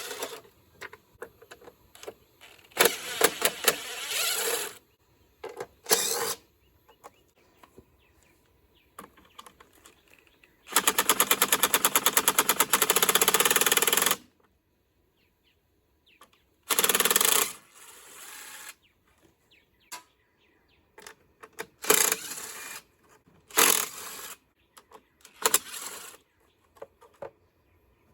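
Tools at work taking apart a lawn mower carburetor: scattered clicks and clatter of metal parts, with a fast, even run of rattling clicks lasting about three seconds near the middle.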